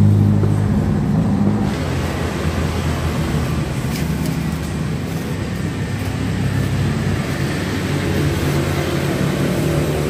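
Steady traffic noise from motor vehicles running close by. An engine's low drone is loudest in the first couple of seconds and fades out.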